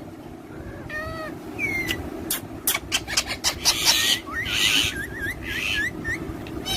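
Parrots chirping and squawking: short whistled chirps, a few harsh squawks and a run of quick wavy chirps in the second half, with several sharp clicks, over a steady low background hum.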